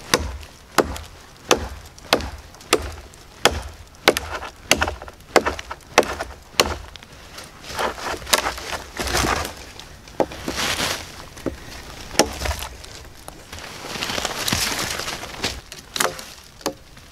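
Reapr Tac Bowie, a 7-inch stainless bowie knife, chopping into a dead pine log: sharp wood-on-blade whacks about every two-thirds of a second, then softer noisy stretches, and a few more strikes near the end.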